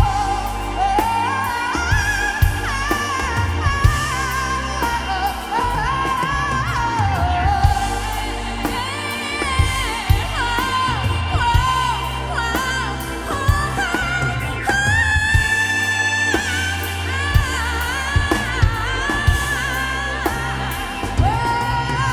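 Rock music with a wordless singing line that slides and wavers in pitch over bass and drums.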